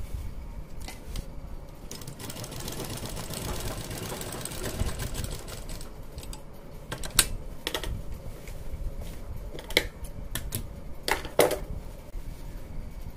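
Sewing machine stitching a double line of stitching along a garment's crotch seam, running in bursts, with several sharp clicks in the second half.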